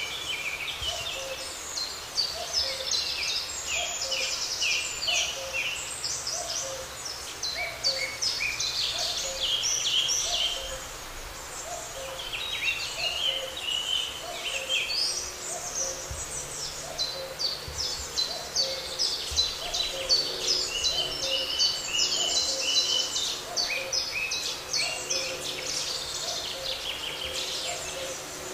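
Several songbirds singing over each other, with a low two-note hooting call from another bird repeated about once a second underneath.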